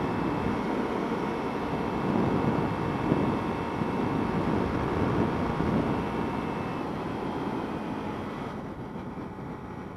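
Kawasaki Ninja motorcycle running at highway speed: steady wind rush over the microphone mixed with the engine. It grows gradually quieter over the last few seconds.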